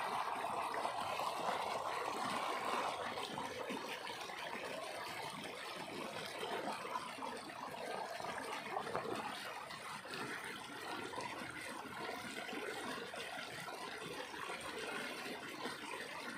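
Swift, rain-swollen stream rushing and splashing steadily, a little louder for the first few seconds.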